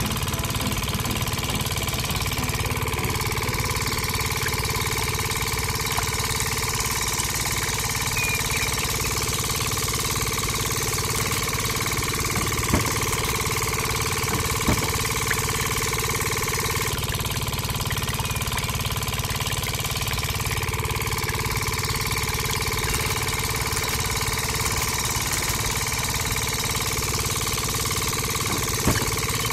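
Small motor running steadily, a constant even hum with a few faint clicks.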